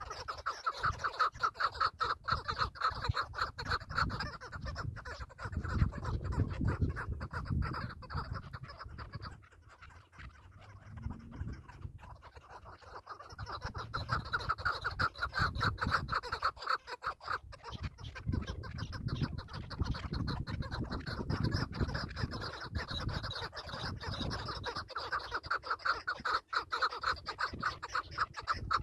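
Chukar partridges calling in a rapid run of clucking 'chuk-chuk' notes that go quiet for a few seconds about a third of the way in and then resume. Gusts of wind rumble on the microphone.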